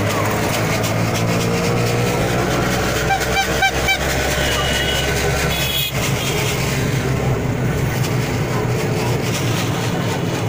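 Engine of a moving small motor vehicle running steadily, heard from inside it, with street crowd noise around. A short run of rapid repeated high tones sounds about three seconds in.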